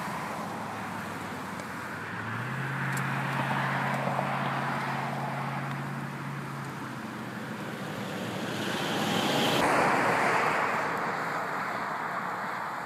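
Highway traffic passing: tyre and engine noise swells and fades as vehicles go by, one with a steady engine drone from about two to seven seconds in, and the loudest pass about ten seconds in.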